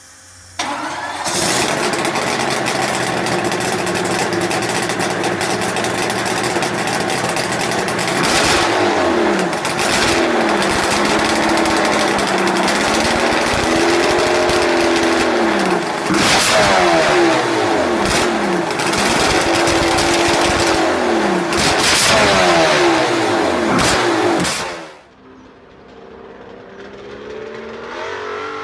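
Evinrude 300XP two-stroke marine V8 fitted in a drag car, starting about half a second in and running loud, then revved up and down again and again before it is shut off a few seconds before the end. Near the end, after a cut, a car engine comes up from a distance, its pitch rising.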